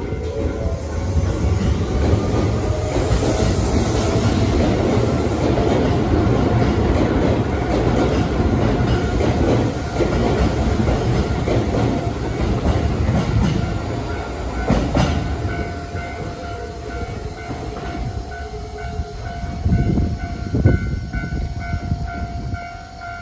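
Keisei electric commuter train pulling away along a station platform: its motor whine rises in pitch as it accelerates, under a steady rumble and clatter of wheels on the rails as the cars pass. The sound eases off in the last several seconds as the train leaves.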